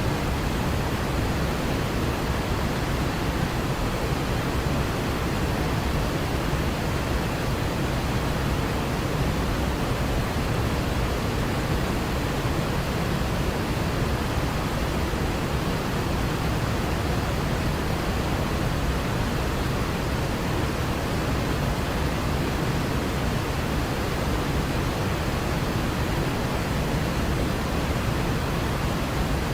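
Waterfall's steady rushing roar of falling water, an even, unbroken noise heaviest in the low end.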